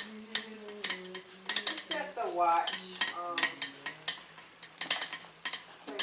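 Screwdriver turning screws into a PC liquid cooler's radiator: irregular sharp metallic clicks and scrapes.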